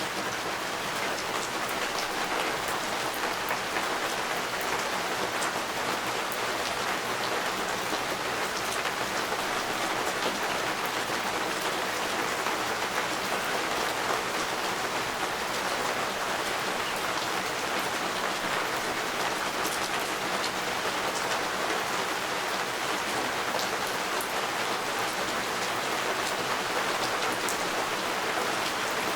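Steady rain falling, an even hiss with scattered pattering drops.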